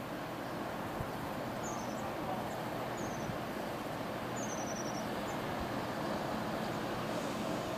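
Class 170 Turbostar diesel multiple unit running slowly into the platform on its underfloor diesel engines: a steady low rumble that grows a little louder as it nears. A bird sings short high trills several times over it.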